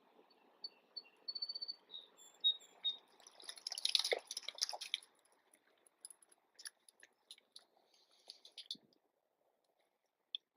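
Small birds chirping: short high notes in the first few seconds, then a denser burst of chatter about four seconds in, followed by scattered faint ticks.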